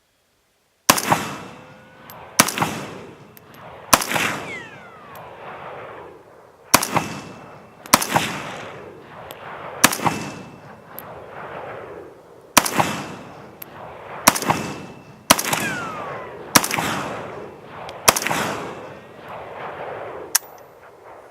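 Century Arms C39v2, a 7.62×39 mm AK-pattern semi-automatic pistol, fired about eleven times in slow, deliberate single shots one to three seconds apart, each report trailing off in a short echo.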